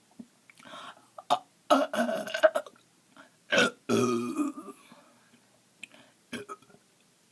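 Deliberate burps made by swallowing air after drinking pop: a loud, rough burp about two seconds in, then a longer burp with a steady low pitch about a second and a half later, with a few short clicks around them.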